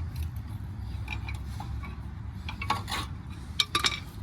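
Metal brake parts clinking as the pads and retaining clips are handled off a truck's front caliper bracket: a few light clinks, with a quick cluster about three seconds in, over a steady low hum.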